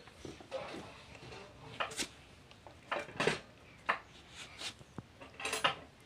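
Light, irregular taps and clinks on a glass door pane, a handful of short knocks spread through the few seconds.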